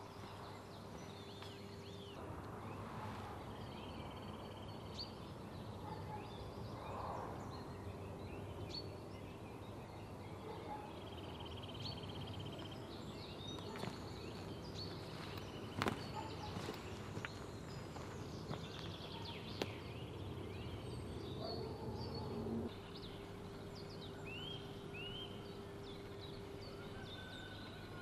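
Songbirds calling and singing in spring woodland, many short chirps and whistles, over a steady low hum that stops about three-quarters of the way through. Two sharp clicks midway.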